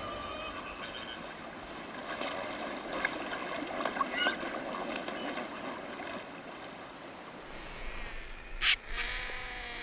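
A flock of flamingos honking in many overlapping calls over splashing water in the shallows, with one sharp, loud splash near the end.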